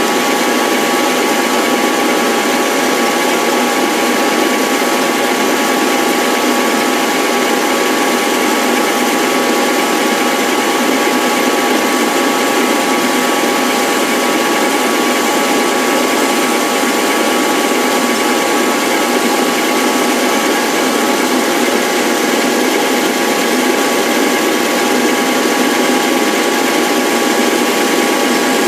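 Power tool running steadily: a constant whir with a few steady high tones and no change in speed.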